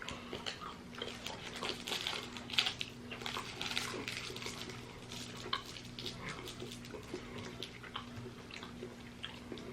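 Quiet eating sounds as fudge is chewed: irregular small mouth clicks and soft handling rustles, over a faint steady low hum.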